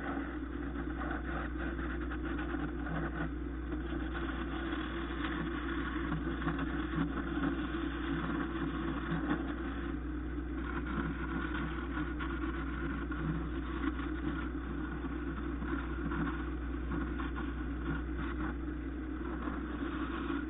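Wood lathe motor running with a steady hum while a hand-held turning tool cuts a spinning banksia nut (Banksia grandis), giving an uneven scraping rasp over the hum.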